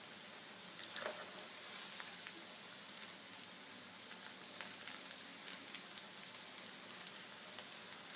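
Rice-paste kurkure deep-frying in hot oil: a steady sizzle with scattered crackles and a few sharper clicks. The pieces are still soft and frying toward crispness.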